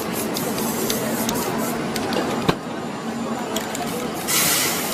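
Small clicks and scraping from a hand working paint on the canvas, with one sharper knock about halfway, then an aerosol spray-paint can hissing in a short burst near the end.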